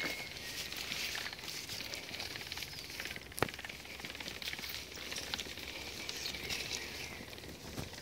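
Pram wheels rolling over a dirt-and-grit path, a steady crackling and crunching made up of many small clicks, with one sharp click about three and a half seconds in.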